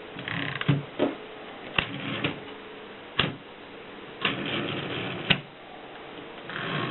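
Mercedes typewriter being worked: a handful of sharp single clacks, roughly a second apart, between short stretches of rattling mechanism noise.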